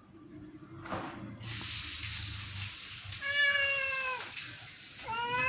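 Domestic cat meowing: one long, slightly falling meow about three seconds in, and a second long meow starting near the end, over a steady hiss.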